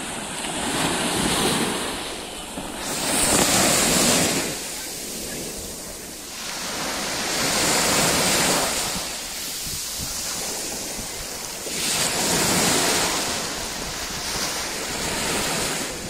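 Small waves breaking on a sandy beach and washing up the sand, the surf hissing in about five surges a few seconds apart.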